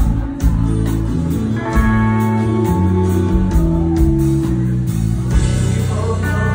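Live country band playing through a PA: strummed acoustic guitar with electric guitar and a bass line stepping through notes, over a steady beat.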